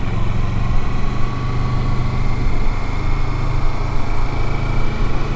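Motorcycle engine running steadily as the bike cruises, its low pulsing note heard from on the bike, with no revving or gear changes.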